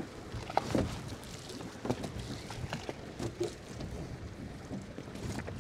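Choppy sea water sloshing and splashing irregularly against a small boat's hull, with wind buffeting the microphone.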